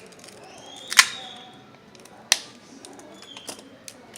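Sharp clicks and taps of small hand tools against the phone and work surface. The loudest comes about a second in with a brief metallic ring, another a little past two seconds, and lighter ticks near the end.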